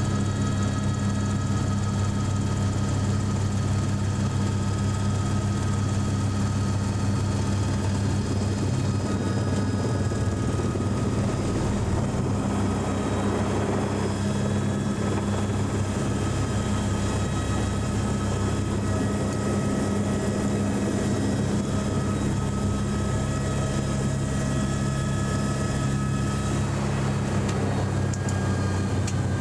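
Eurocopter AS350 helicopter heard from inside the cabin: the Turbomeca Arriel turboshaft's whine and the main rotor's steady beat, a loud, steady drone with a deep hum and several high steady tones.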